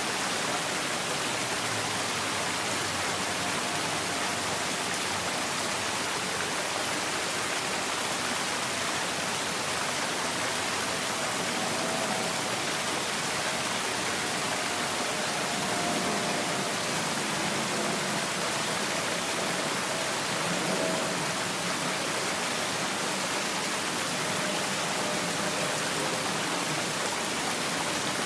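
Steady rush of a small garden stream running over rocks, an even splashing hiss. A faint thin tone drifts in and out through the middle.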